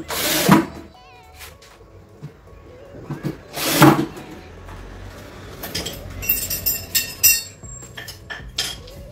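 Cordless drill-driver driving screws into the rack's panels in two short bursts, one at the start and one about four seconds in. Later comes a metallic clinking of loose screws and hardware.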